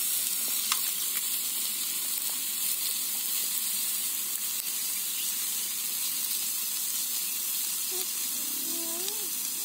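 Sliced meat and onions sizzling steadily on a round grill plate over a portable gas stove, with a single light click a little under a second in.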